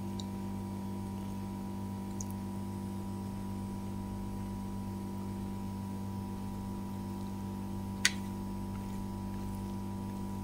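A steady low electrical hum, with a couple of faint ticks and one sharp click about eight seconds in.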